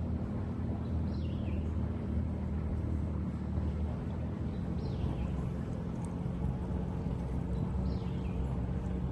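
An engine idling steadily with a low hum, while a bird's short, high, falling call comes three times, every three to four seconds.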